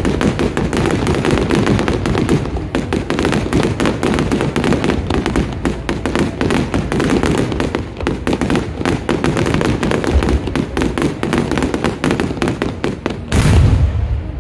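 Aerial fireworks display: a dense, fast run of bangs and crackles from bursting shells, with one heavy boom near the end, the loudest.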